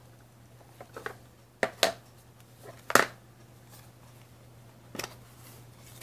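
Plastic ink-pad cases and small rubber stamps handled on a table: a handful of short clicks and taps as an ink-pad lid is opened, the loudest about three seconds in, over a faint low steady hum.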